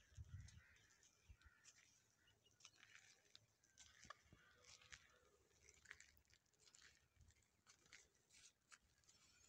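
Near silence: faint, scattered crackles and clicks, with a couple of soft thumps right at the start.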